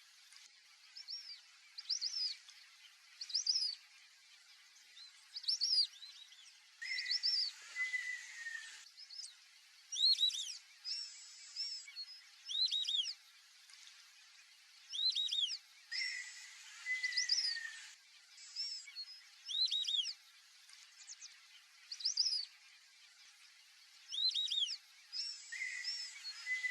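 White-faced whistling-ducks whistling: high, clear notes that slide in pitch, given in quick groups of two or three and repeated every second or two.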